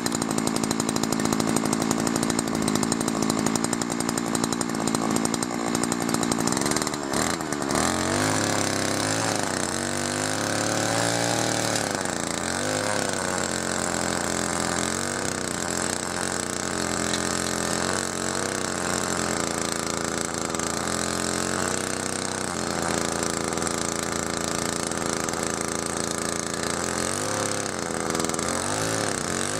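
Small petrol rotavator (garden tiller) engine running. It is steady at first, then from about seven seconds in its pitch dips and recovers again and again as the load on it changes while it works the soil.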